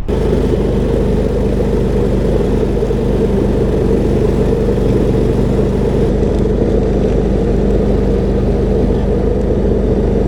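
Engine of a garden tractor fitted with a John Deere 47 snowblower, running steadily at a constant speed while the blower works through snow.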